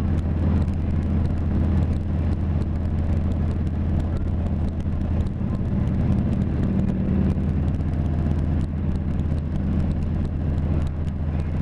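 Harley-Davidson touring bagger's V-twin engine running at a steady cruise, mixed with a rush of wind and road noise from riding.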